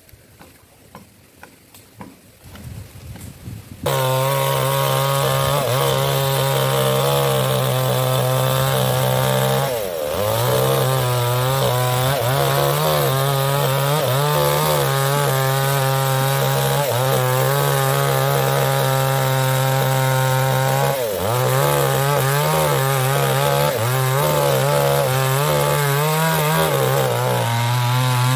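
A small two-stroke chainsaw cuts in suddenly about four seconds in at full throttle and runs steadily while cutting into a mahogany log. Its engine speed dips briefly twice, about ten and twenty-one seconds in. The first few seconds are only faint sounds.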